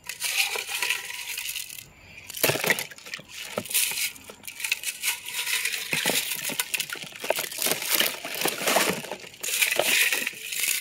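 Freshly tumble-polished rocks clicking and clinking against one another as they are stirred by hand in a plastic tub of milky polish water, in quick, irregular clusters of clicks.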